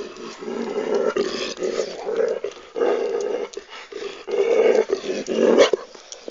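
Dog growling in several long bouts with short breaks between them. A contented growl of pleasure at being stroked on the hips and rump, not a threat.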